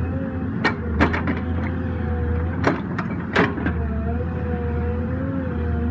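Small excavator's diesel engine running steadily with a wavering hydraulic whine as the arm works. A cluster of sharp cracks and knocks comes about a second in, and again around three seconds in, as the attachment tears into the stump roots.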